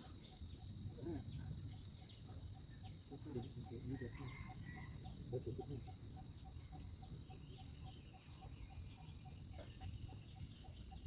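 Insects, likely crickets, keeping up a continuous high-pitched buzzing trill. A fainter, lower call pulses steadily underneath it several times a second.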